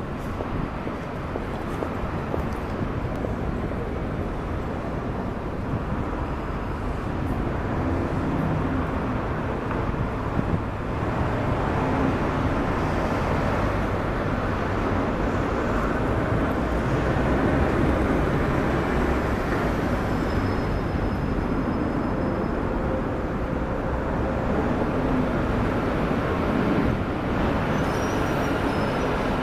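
Jet noise from a Boeing 747's four engines on its landing approach: a steady rushing rumble that grows gradually louder, with a faint high whine about two-thirds of the way through.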